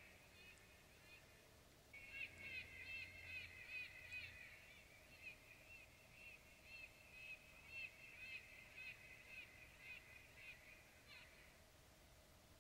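Electronic predator caller playing a faint, high-pitched animal distress call: short squealing notes repeated two to three a second. They start about two seconds in and stop shortly before the end.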